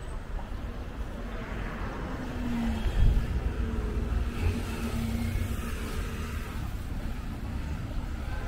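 A car driving past on the street, its engine hum swelling about two to three seconds in and then fading slowly, over a steady low street rumble.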